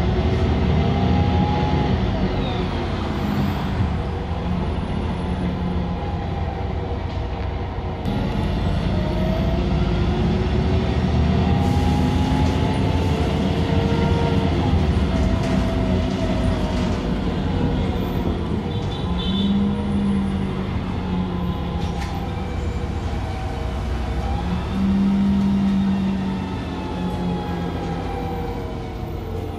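Irisbus Cityclass CNG city bus heard from inside while under way: a steady low engine and road rumble, with whining tones that rise and fall in pitch several times as the bus speeds up and slows.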